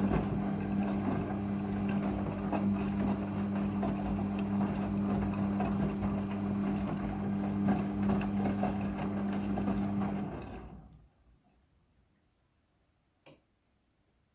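Midea front-loading washing machine running during its rinse cycle: a steady electric hum with water rushing through it, which stops about ten seconds in. A single sharp click follows a few seconds later.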